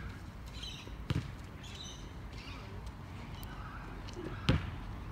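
Basketball thudding on a hard outdoor court, two single hits about three and a half seconds apart, one about a second in and one near the end.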